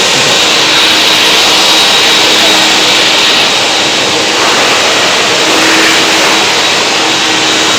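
Steady loud whir of workshop machinery with a faint steady whine running through it.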